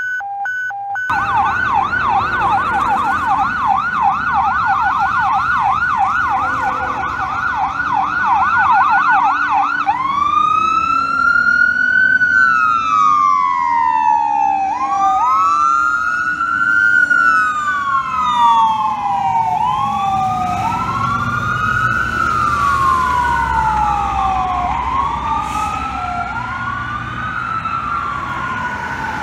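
Emergency vehicle sirens on a fire engine and ambulance responding to a call. A fast yelp runs for about the first ten seconds, then switches to a slow rising-and-falling wail. A second wail soon joins, out of step with the first, over traffic noise.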